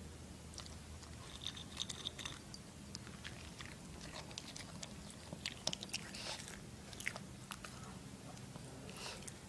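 Toy poodle chewing dog food, with many quick, irregular crunches and clicks of her teeth on the food.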